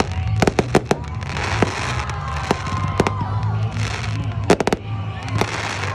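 Fireworks going off: about a dozen sharp bangs and cracks, several in quick clusters, with a few falling whistles.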